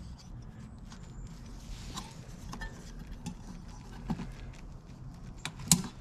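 Scattered small clicks and taps of hands working a plastic headlight housing and seating its bulb, with one sharper click near the end.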